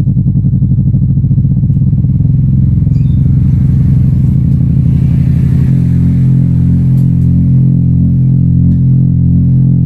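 Loud bass test signal played through a stack of ACR 6-inch woofers in horn-loaded plywood cabinets. It starts as fast, even pulses that speed up and merge into a steady deep drone, which takes on a slow throb about six seconds in.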